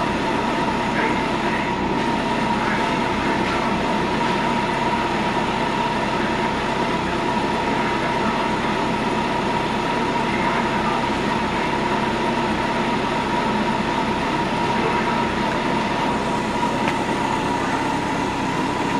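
Steady mechanical running noise that does not change, with a constant high whine over a low hum.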